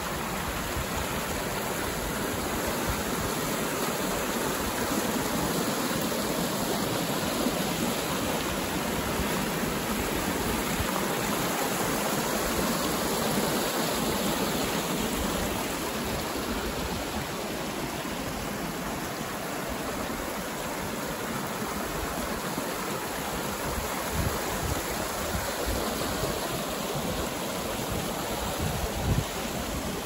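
Mountain river rushing steadily, a dense, even sound of running water, with a few short low thumps near the end.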